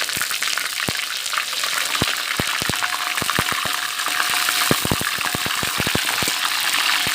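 Curry leaves and whole spices frying in hot oil in a kadai: a steady sizzle, spattered with many sharp crackles and pops as the leaves spit in the oil.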